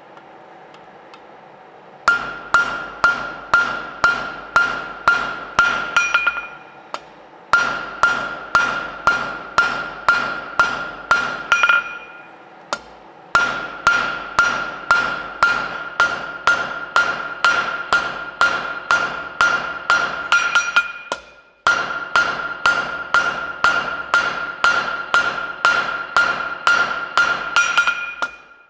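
Hand hammer striking a red-hot bar on the horn of an anvil, about two blows a second, each with a bright anvil ring. The blows start about two seconds in and come in four runs with brief pauses between them.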